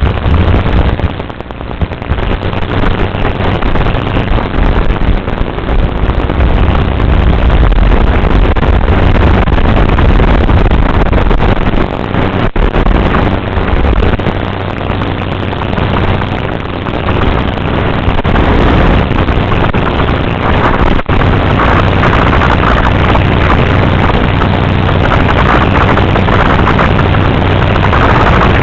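Loud, steady whirring of a small motor right at the microphone, with no clear pitch, dipping briefly about a second in.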